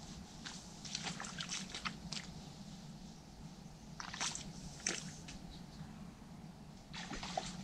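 Hooked tench splashing and thrashing at the surface close to the bank while it is played, in three short bursts of crackling splashes: about half a second in, around four seconds, and near the end.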